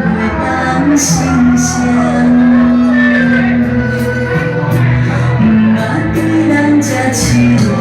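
A song playing loudly: a singer holds long, sliding notes over a band accompaniment, with short bright cymbal-like strokes now and then.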